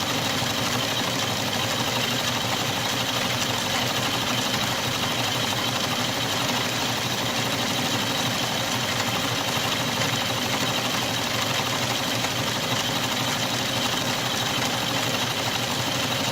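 Atlas metal lathe running a shop-made milling attachment, its end mill taking a light cut across the face of a vise: a steady machine drone with a high whine in it.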